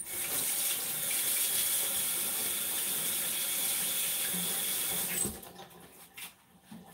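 Kitchen tap running into a sink for about five seconds, then shut off.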